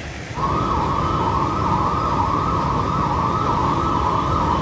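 Electronic vehicle siren wailing, its pitch wavering quickly up and down and starting about half a second in, over the low rumble of traffic.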